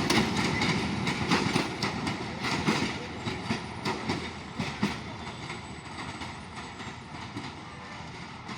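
Passenger train rolling past, its wheels clicking over the rail joints, the clatter growing steadily fainter.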